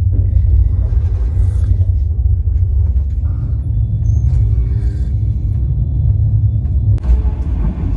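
Passenger train in motion: a loud, steady low rumble of the coach running along the track.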